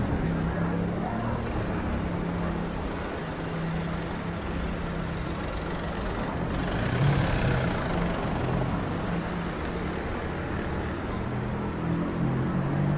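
Street traffic with a heavy vehicle's engine running at low revs. A short hiss comes about halfway through, and near the end the engine note starts rising as it pulls away.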